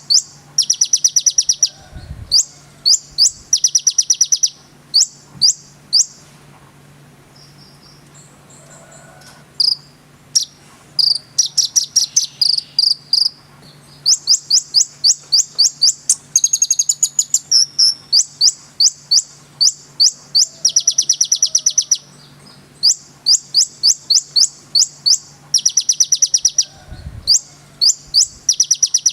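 A konin bird singing in rapid-fire trains of sharp, high-pitched chips, the gacor 'nembak' style. The dense bursts are broken by short gaps, with softer twittering about a third of the way in. A faint steady low hum runs underneath.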